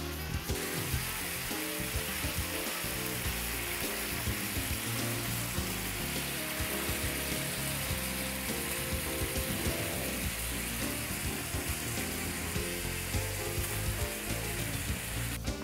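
Ground-beef burger patties sizzling as they fry in their own grease on a flat griddle: a steady hiss. Music with a bass line plays underneath.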